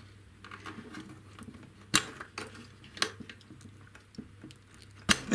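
A multi-pin plastic wiring-harness connector being worked free from a motor controller's socket by hand: faint rubbing and small plastic clicks, a sharp click about two seconds in, another about a second later, and a louder snap near the end as it comes loose.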